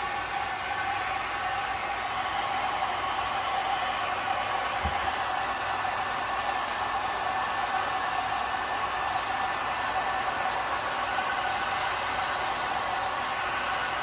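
Wagner Furno 550 heat gun blowing steadily, a constant rushing hum of its fan and air. One soft low thump about five seconds in.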